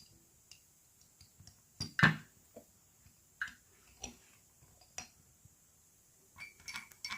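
A teaspoon tapping and clinking against a jar and a glass of hot milk as honey is added, a few separate taps with the loudest about two seconds in. Near the end the spoon starts stirring quickly in the glass, a fast run of clinks with a ringing tone.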